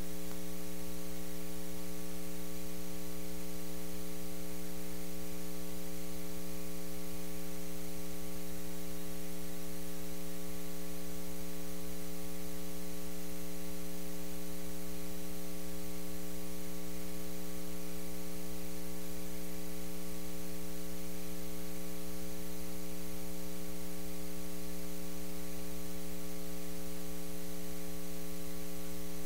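Steady electrical mains hum with a buzzy stack of higher overtones over a faint hiss, unchanging throughout.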